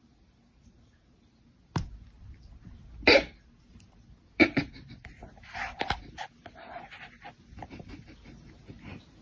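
An animal's short breathy puffs, mixed with scattered knocks, starting after a quiet first two seconds.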